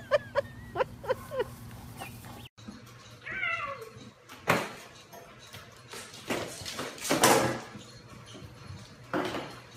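A cat with a can stuck over its head meows once, a long falling call, about three seconds in, followed by two noisy bursts, the louder one about seven seconds in. Before that, a few short high animal calls are heard.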